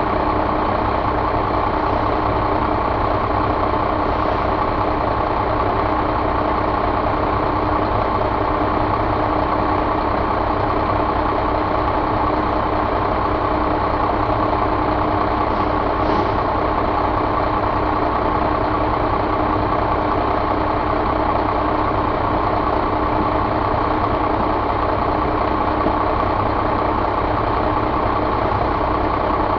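1999 Cummins C8.3 inline-six turbo diesel engine idling steadily, running evenly without revving.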